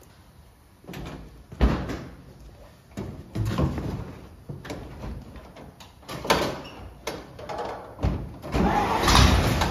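Knocks and thumps of the 1948 Dodge Power Wagon's steel cab door being swung open and shut as someone climbs into the cab. Near the end a loud continuous sound sets in as the truck is cold-started.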